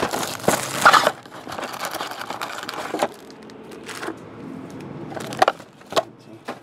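Plastic shrink wrap crinkling as it is pulled off a trading card box, fading after about a second. Then a few separate knocks and clatters as card boxes and foil packs are handled and set down on a table.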